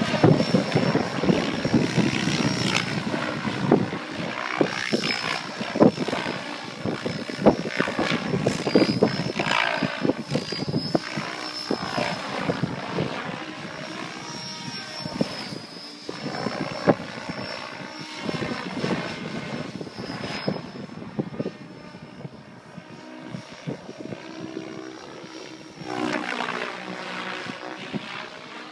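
Electric 800-size RC helicopter (Mikado Logo XXtreme 800) flying aerobatics: the rotor noise rises and falls in pitch and loudness as it swoops and changes direction, over a steady high motor whine. Gusts of wind buffet the microphone in frequent sharp bumps.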